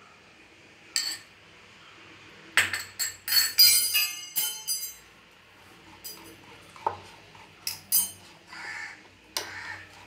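Wire whisk beating batter in a glass bowl: irregular clinks of the metal whisk striking the glass, thickest from about two and a half to five seconds in, then scattered.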